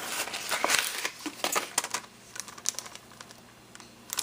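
Crinkling of craft-supply packaging being handled, with scattered light clicks and taps. It is busiest in the first two seconds, then thins to occasional small clicks.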